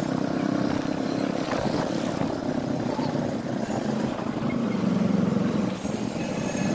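Bajaj CT100's single-cylinder engine running while the motorcycle rides along a busy street, its note wavering and dipping about five seconds in, with traffic noise around it.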